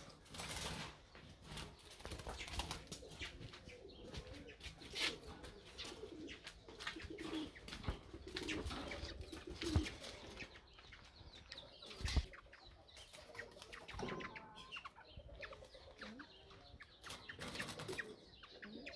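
Small cage birds fluttering inside wire birdcages as the cages are lifted and carried, with scattered knocks and rattles of the cage wire and a louder knock about twelve seconds in.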